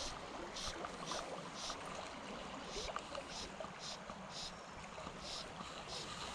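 Fly line being stripped in by hand through the rod guides: a string of short hissing zips, one or two a second at an uneven pace, over the steady rush of a shallow creek.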